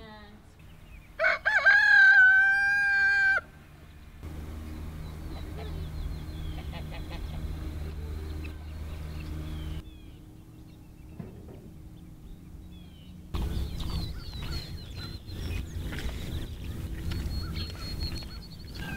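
A rooster crowing once, about a second in, ending on a long held note. After it come a lower steady rumble and faint high bird chirps.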